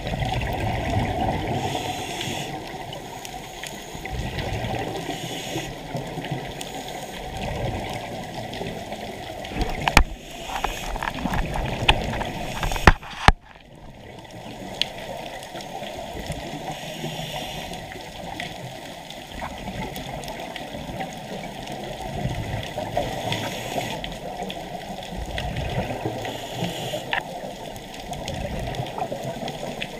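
Scuba diver's regulator breathing heard underwater: bubbling exhalations and hissing breaths that swell and fade every few seconds. About ten to thirteen seconds in comes a cluster of sharp clicks and knocks, ending in one loud knock.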